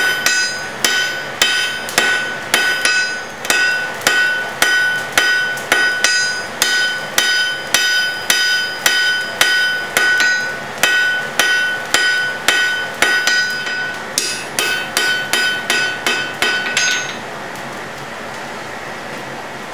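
Blacksmith's hand hammer striking a red-hot bar on an anvil, drawing the end out to a point, at about one and a half blows a second, each blow leaving the anvil ringing with a clear high tone. Near the end come a run of quicker, lighter blows, then the hammering stops and a steady hiss is left.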